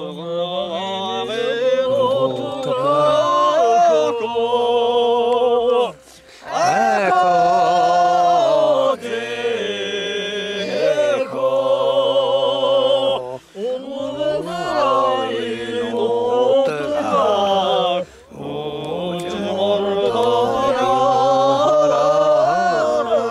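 A single voice singing a slow song unaccompanied, holding long notes with wavering ornaments. The phrases break for short breaths about six, thirteen and eighteen seconds in.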